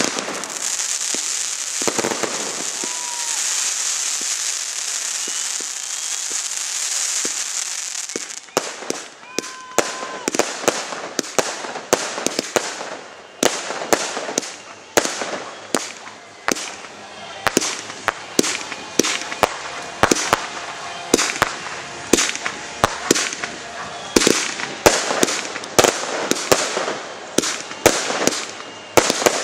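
Aerial fireworks display: a continuous high hiss and crackle for the first eight seconds or so, then a rapid, irregular run of sharp bangs, a couple a second, as shells burst overhead.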